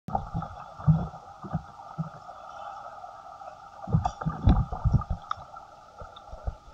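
Heard underwater beside a capsized kayak: muffled gurgling and low thumps of water moving around the upside-down paddler and hull, over a steady hum. The thumps cluster about a second in and again around four to five seconds in.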